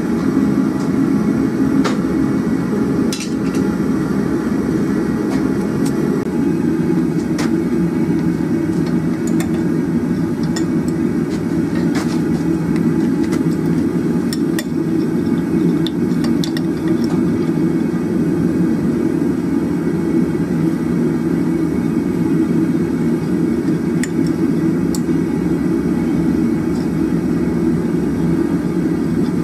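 Gas forge burner running with a steady low rushing sound, and a few scattered sharp metal clinks and taps from work on a wrought hook at the anvil and vise.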